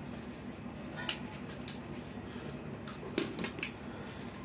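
Faint wet eating sounds: fingers mixing rice into pork curry on a plate, and chewing, with a few soft clicks over a steady low background hum.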